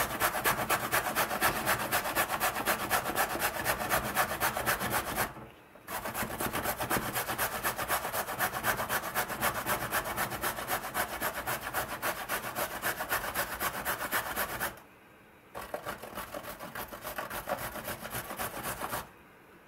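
Carrot being grated on the coarse side of a metal box grater standing on a wooden board: quick rasping strokes with two brief pauses, softer in the last few seconds.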